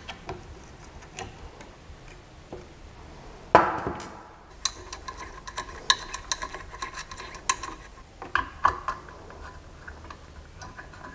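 Clicks, taps and knocks of the Creality CP-01's tool-head module being handled and swapped, the 3D-printing head giving way to the laser engraving module, with one sharper knock about three and a half seconds in.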